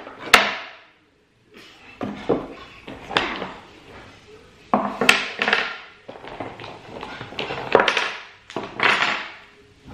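Loose wooden Jenga-style blocks clacking and knocking against each other and the cardboard box as they are lifted out by hand, in several separate bursts with short pauses between.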